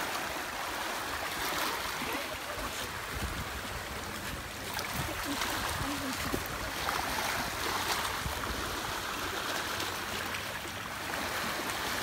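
Small waves on the Hudson River washing and splashing over rocks and the stony shallows at the water's edge, swelling and falling every couple of seconds. A low rumble of wind on the microphone runs under it.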